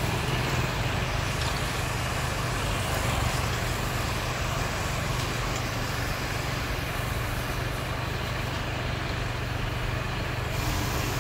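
City street traffic: cars driving past, over a steady low engine hum.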